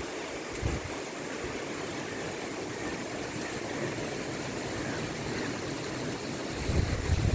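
Steady rushing hiss of wind through coconut palms mixed with water, with wind buffeting the microphone in a low rumble near the end.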